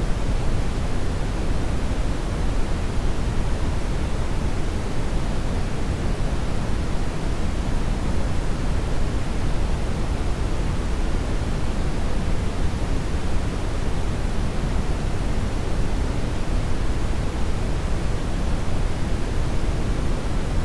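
Steady synthesized noise, a continuous, unchanging rush with its weight in the low end and fading toward the highs, without any tone or event in it.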